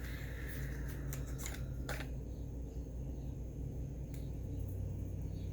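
Makeup packaging and product tubes being handled: a rustle and a few sharp clicks in the first two seconds, then quieter handling, over a steady low hum.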